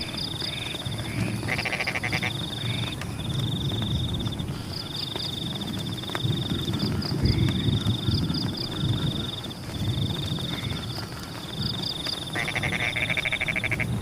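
A chorus of paddy-field frogs calling in the rain: a steady high pulsed trill with short triple notes repeating above it, and two bursts of louder pulsed croaking, about a second and a half in and near the end, over a low steady wash of rain.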